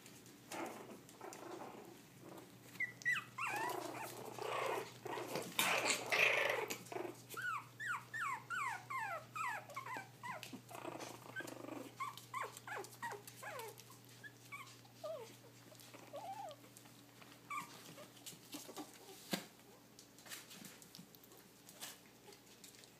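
Young puppies play-fighting, with small growls and high squeals. Then comes a run of short yips falling in pitch, about two a second, thinning out over several seconds.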